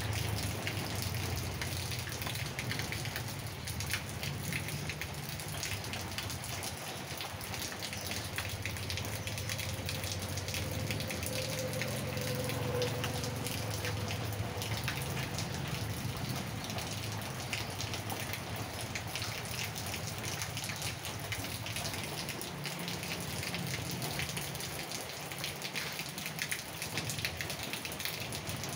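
Steady rain falling on wet paving and garden plants, an even hiss of rain filled with the ticks of single drops.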